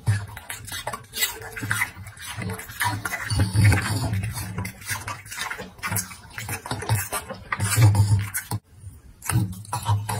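A dog chewing and crunching pieces of apple and dragon fruit, with wet mouth smacking; short, sharp crunches come irregularly.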